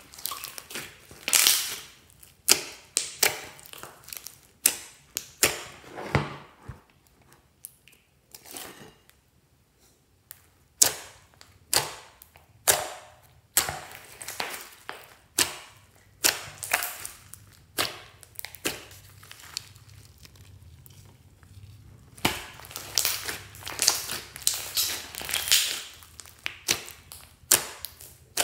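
Hands squeezing and kneading a large mass of slime: irregular wet squelches and sharp clicking pops as air pockets are pressed out, one or two a second, easing off twice for a few seconds.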